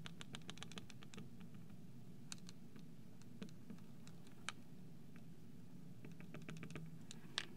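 Marker tip tapping quickly on a glass lightboard to draw dotted lines: a fast run of light clicks in the first second, a few scattered taps, then another run near the end, over a faint low room hum.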